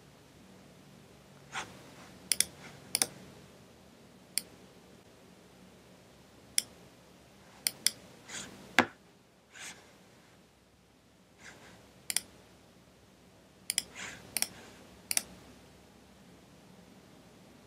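Computer mouse clicking at irregular intervals: about a dozen short, sharp clicks, several in quick pairs, with a few softer scuffs between them.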